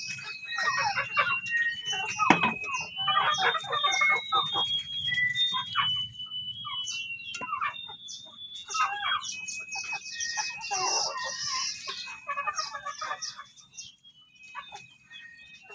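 Several chickens clucking, with high, thin peeping calls throughout; the calling thins out near the end.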